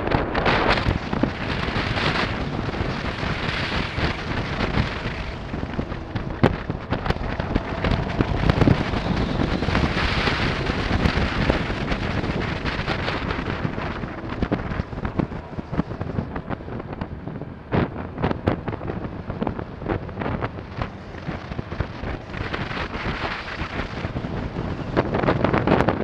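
Wind rushing and buffeting over the microphone of a helmet camera on a moving motorcycle, a dense rush with frequent crackles and thumps, and a lull about two thirds of the way through.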